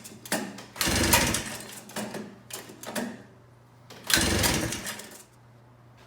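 Recoil pull-starter being yanked on a rebuilt Kawasaki T1C340 two-stroke twin snowmobile engine that cranks over without firing: a long pull about a second in and another about four seconds in, with shorter rattles between. The engine won't catch, which the owner puts down to a faulty CDI.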